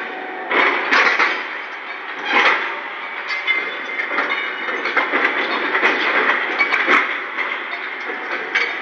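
Steel rails and a crane's chain-hung lifting beam clanking and scraping against each other in a ship's steel hold as the rails are rigged for lifting, over a steady mechanical din. The loudest bangs come about half a second to a second in and again near two and a half seconds.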